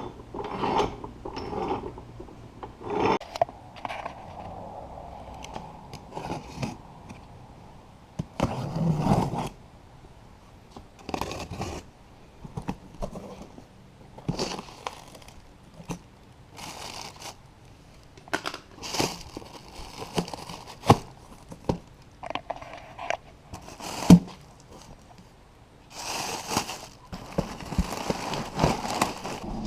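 Irregular knocks, clicks and scrapes from hand work with tools and metal parts, some sharp, some sliding.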